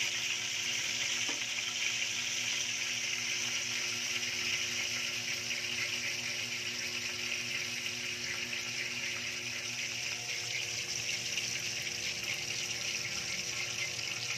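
Breadcrumb-coated chicken pieces frying in hot oil in a wok: a steady sizzling hiss, with a faint steady hum underneath.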